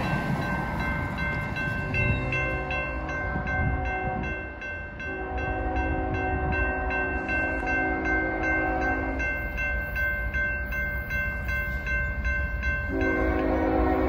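Railroad crossing bell ringing rapidly and steadily while an approaching train sounds its multi-note horn in long blasts. There is a fainter blast a couple of seconds in, a long one from about five to nine seconds, and another starting near the end, over a low rumble of the train.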